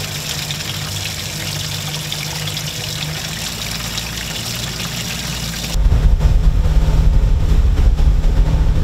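Water pouring and splashing into a boat's live bait well full of baitfish, a steady hiss over a low engine hum. About six seconds in it changes abruptly to the boat running, with wind buffeting the microphone.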